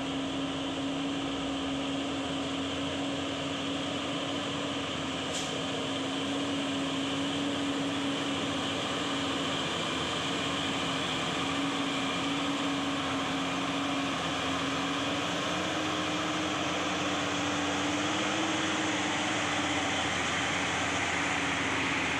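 Diesel engine of a loaded Hino 500 dump truck pulling steadily up a steep gravel climb, with a Mitsubishi Fuso truck's engine coming up behind. It is one continuous drone that rises slightly in pitch and grows a little louder in the later part.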